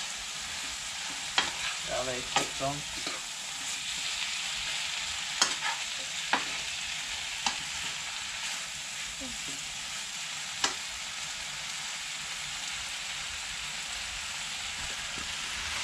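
Saime bean, shrimp and potato curry sizzling steadily in a pan over a gas burner while a ladle stirs it, knocking sharply against the pan about six times in the first ten seconds or so.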